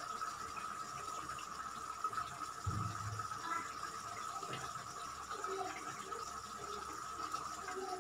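Thick curry gravy bubbling at the boil in a steel kadai, small plops over a steady thin whine. There is one soft thud a little under three seconds in, as paneer pieces go into the pot.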